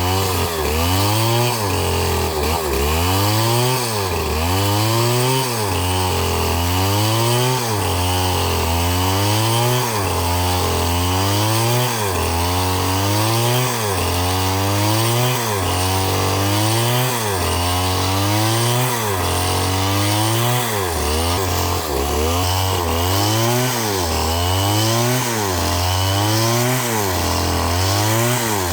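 Two-stroke chainsaw running at high revs while cutting wood, its engine pitch rising and falling in a regular rhythm about once every second and a half.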